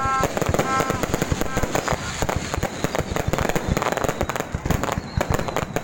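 Fireworks going off in a dense, rapid crackle, many sharp pops a second without a break.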